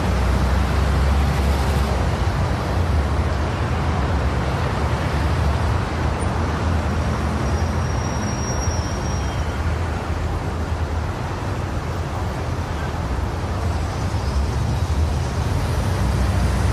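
City street traffic: a steady rumble of passing cars and trams, with a brief faint high whine about eight seconds in.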